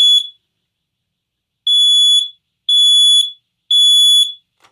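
Smoke detector sounding its test alarm in the standard three-beep evacuation pattern: loud, high-pitched beeps, the last of one group fading out right at the start, then a pause of about a second and a half and three more beeps.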